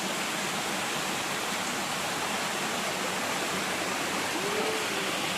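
Rushing river water, a steady even rush of flowing water.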